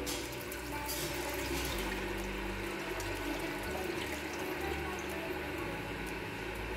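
Water poured from a large plastic bottle into an empty cooking pot, a steady splashing fill.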